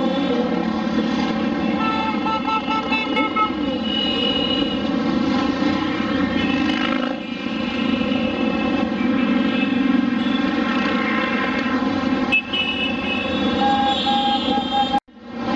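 A column of motorcycles and quad bikes riding past, their engines running together in a continuous din, with horns honking briefly twice. The sound cuts out for a moment near the end.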